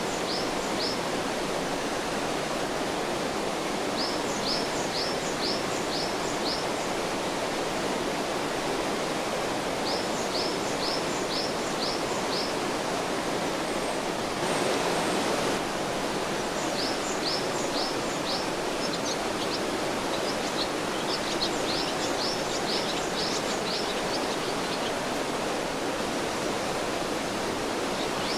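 Mountain stream flowing steadily over rocks, with a small songbird singing a short phrase of five or six quick high notes, repeated every few seconds. About halfway through, the water noise swells briefly for a second.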